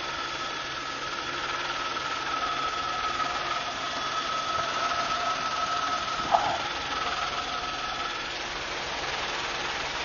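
Helicopter in flight, heard from inside the cabin: a steady rushing noise with a high whine that fades out near the end, and a single sharp click a little over six seconds in.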